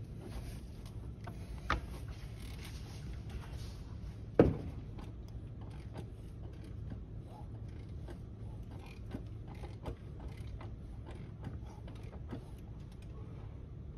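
Kia Soul engine being turned over slowly by hand at the crankshaft: scattered small clicks and creaks from the tool and engine, with two louder knocks about two and four and a half seconds in.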